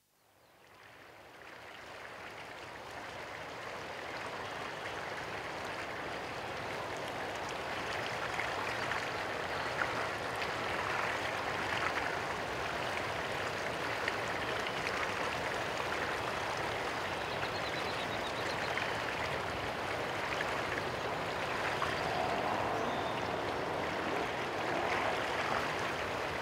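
Steady rushing and trickling of running water, fading in over the first few seconds.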